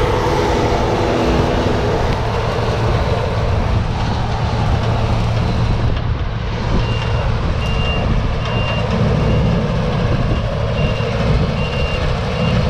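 Claas combine harvester running, a steady engine hum with machine noise over it. From about seven seconds in, a short high warning beep repeats about once a second, like a reversing alarm.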